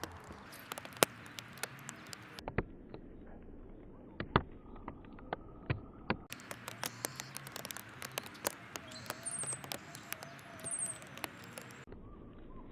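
Birds feeding, pecking and hopping about, making irregular sharp taps and clicks, with a few brief high chirps about two-thirds of the way through.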